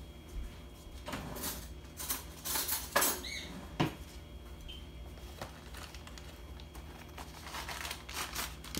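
Kitchen clatter: a drawer or cupboard being worked and cutlery knocking as a spoon is taken out, several separate knocks with a short squeak about three seconds in. A few lighter clicks and rustles come near the end.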